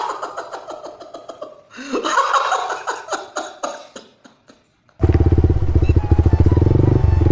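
A man's exaggerated laughing that turns into sobbing, in short gasping pulses that fade out. About five seconds in, a motorcycle engine cuts in suddenly, running loudly.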